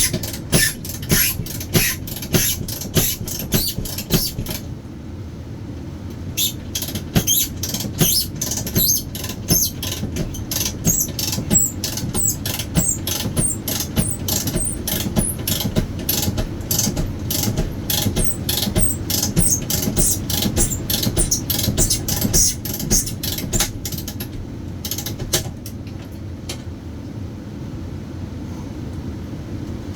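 Manual knockout punch being cranked through sheet-metal enclosure by hand with a wrench: a long steady run of sharp clicks, about two to three a second, that stops about 26 seconds in, over a steady low hum.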